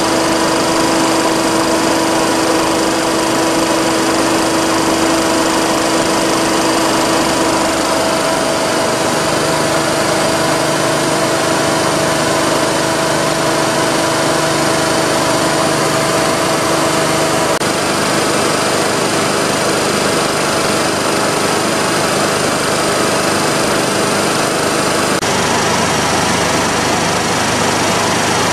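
J.P. Sauer WP311L marine air compressor running steadily and loudly, a continuous mechanical clatter with a constant whine whose tones shift slightly about eight seconds in.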